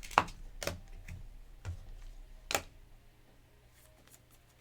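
Sharp clicks and taps on a tabletop, about five in the first three seconds and then only faint ones.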